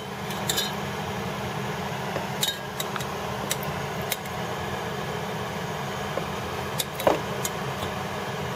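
A metal spoon stirring the thick black caramel and molten sugar left from boiled-down Coke in a glass measuring beaker, knocking lightly against the glass: a few scattered clinks over a steady background hiss.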